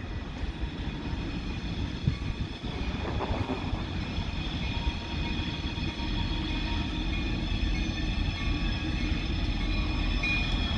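Approaching freight train: steel wheels screeching steadily as they round a curve in the track, over a low locomotive rumble that grows louder toward the end. No horn is sounded.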